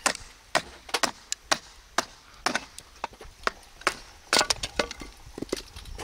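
A fixed-blade knife batoned down through a stick of firewood, the blade hammered in to split it: a quick series of sharp wooden knocks, roughly two a second, with a tight cluster a little past the middle.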